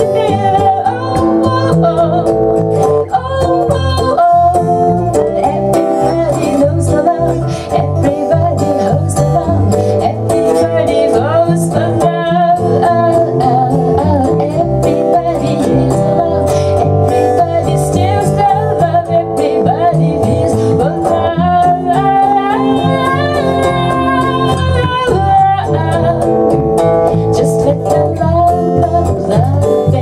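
Live song: a woman singing over a strummed acoustic guitar and an electric bass.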